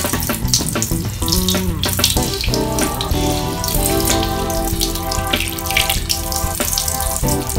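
Hot water streaming steadily from a hand shower head and splashing onto a tiled floor, with a hand moving through the stream; the water is steaming, heated by the newly installed electric water heater. Background music with sustained notes plays over it.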